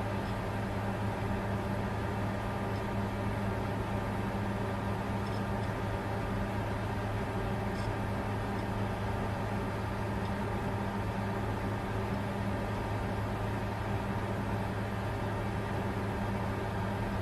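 Bitcoin mining computer running, its cooling fans giving a steady hum over an even hiss that does not change.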